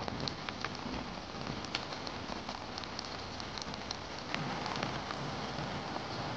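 Steady rain: an even hiss of falling rain with many separate drops tapping close by.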